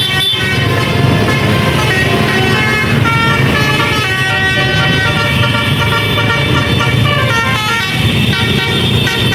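Basuri telolet horn, a bank of musical air horns on a vehicle, playing a melody. Its notes change every fraction of a second, several sounding together, over a low engine rumble.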